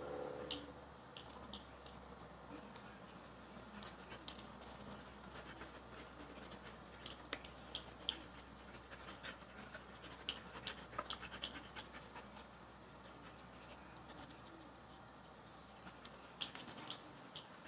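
A Siberian husky and a border collie play-wrestling: scattered light clicks and scratches of claws and jaws, a cluster of sharper ticks near the end, over a faint steady low hum.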